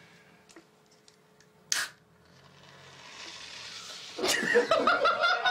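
A short, sharp burst of noise about two seconds in, then a hiss that slowly builds, and near the end men burst out laughing.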